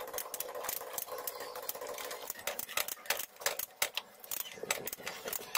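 Socket wrench ratchet clicking in quick, uneven runs as a 12 mm nut on the brake master cylinder is turned down.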